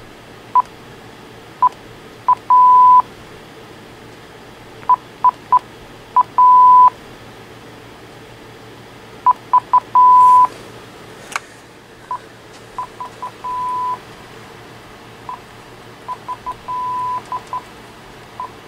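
Uniden DECT 6.0 cordless phone handset beeping under key presses while redial entries are deleted: runs of two to four short beeps at one pitch, each run ending in a longer tone, about five times over. A sharp click comes about eleven seconds in, and the beeps after it are quieter.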